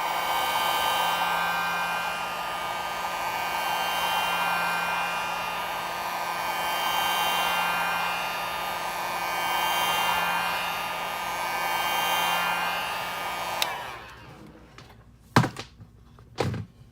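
Handheld heat gun blowing hot air, a steady rush of air with a motor whine, rising and falling every few seconds as it is swept around the phone's edge to soften the screen adhesive. It shuts off abruptly near the end, followed by two sharp knocks.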